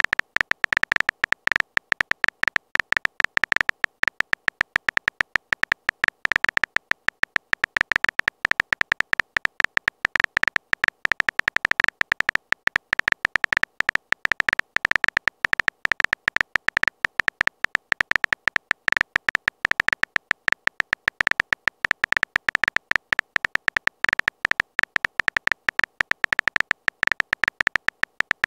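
Phone keyboard typing sound effect: a short, high-pitched tick for each letter typed, repeating rapidly, many a second, without pause.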